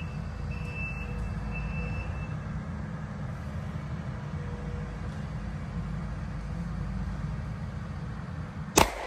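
A skid steer's engine running steadily, its backup alarm beeping about once a second for the first couple of seconds. Near the end comes a single pistol shot, the loudest sound, ringing off afterward.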